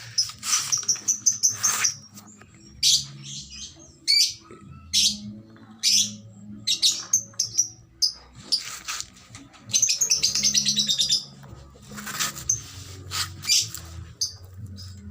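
Small birds chirping: many short, high-pitched chirps and trills, coming again and again at uneven intervals over a faint low background hum.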